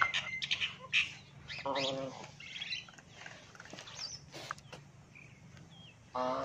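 A dog gives a short whining moan in play about two seconds in. Small birds chirp throughout, and there are a few light clicks.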